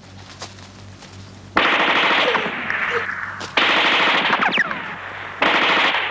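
Three long bursts of automatic rifle fire in a jungle firefight. The first starts about a second and a half in, and falling whines sound over the second burst.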